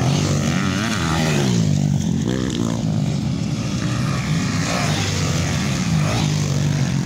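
Several motocross bikes racing on a dirt track, their engines revving up and down in pitch as they come through a bend. One bike passes close at the start and another near the end.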